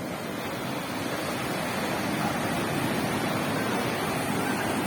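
Ocean surf washing onto the shore: a steady rush of breaking waves.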